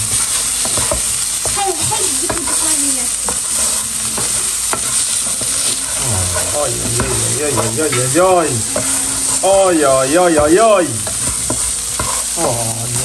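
Diced meat and onions sizzling in a frying pan while a plastic spatula stirs and scrapes them, with frequent light clicks of the spatula against the pan. About two-thirds of the way through, a few short sounds rise and fall in pitch.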